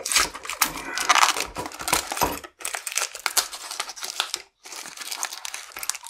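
Stiff clear plastic blister packaging crinkling and crackling as it is worked and peeled off its cardboard backing card to free a padlock, with two short pauses.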